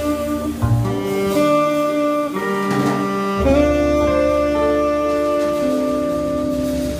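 Jazz quintet playing a slow passage: a saxophone holding long notes over a bass line.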